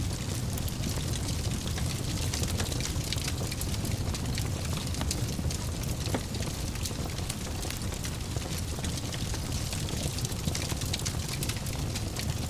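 Wood fire burning in a fireplace: a steady low rumble of flames with frequent small crackles and pops.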